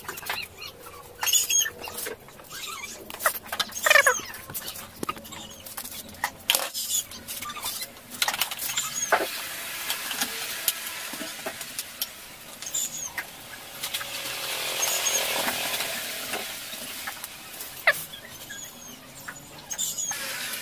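Hand-work noises on metal parts: scattered clicks, knocks and scrapes, with short squeaky scrapes near the start and a longer hissing scrape through the middle.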